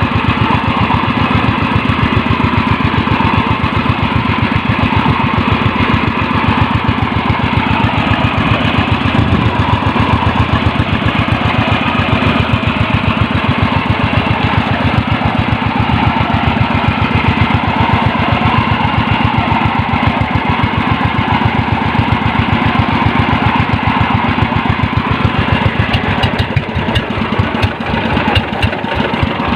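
Small fishing boat's engine running steadily under way, with an even, rapid chugging, while the net is being set.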